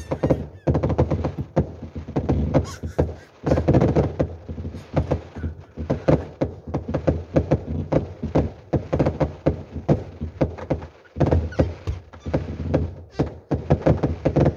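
Fireworks bursting overhead: rapid volleys of bangs and crackles, with short lulls between the volleys.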